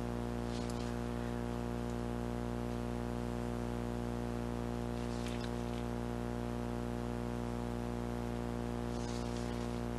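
A steady hum made of many even tones that never changes, with a few faint, brief scrapes or clicks about half a second in, midway, and near the end.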